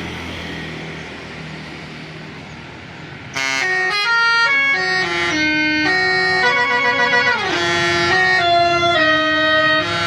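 Bus telolet horn (Basuri multi-tone air horn) playing a fast melody of stepped notes, starting about a third of the way in. Before it, a few seconds of engine and traffic noise.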